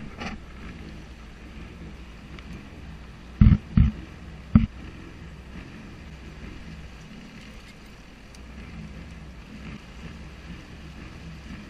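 Sea-Doo jet ski engine idling low after the throttle is let off, with three sharp knocks a few seconds in.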